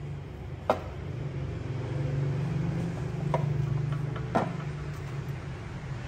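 Kitchen knife cutting sausage and knocking on a wooden cutting board three times, over a steady low hum.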